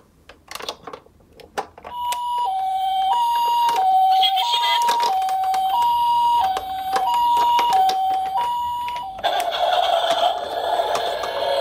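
Small plastic clicks and knocks from toy cars, then a toy ambulance's electronic siren starts about two seconds in. It is the Japanese ambulance 'pi-po' two-tone, alternating high and low about every half second. Near the end the siren gives way to a noisier, wavering sound.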